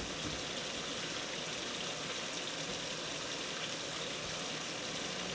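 Kitchen tap running steadily into the sink, an even rushing hiss.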